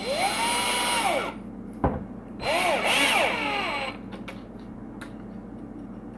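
Black & Decker 20V cordless drill driving in bumper bolts: two short runs, the first spinning up, holding a steady pitch and winding down, the second wavering in pitch, with a sharp click between them.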